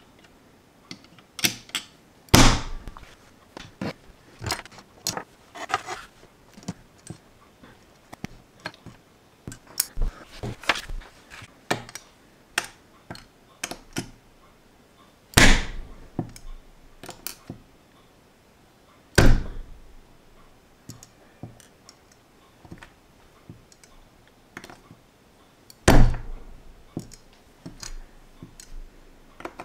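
Small plastic LEGO pieces handled with metal tweezers on a tabletop: a run of light clicks and taps, with four louder knocks spread through where pieces are pressed home against the table.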